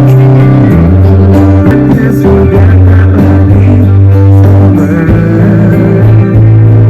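Band music with guitar over a bass line that moves between held low notes, played loud.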